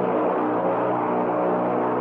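Ship's horn of the ocean liner SS United States sounding one long, steady blast.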